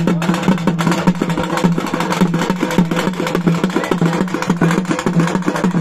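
Music: fast, steady drumming over a sustained low drone.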